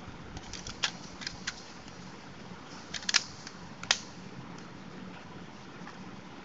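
Sharp plastic clicks as a Nokia 215's green back cover is handled and snapped onto the phone body: a few small clicks in the first second and a half, then louder ones about three and four seconds in.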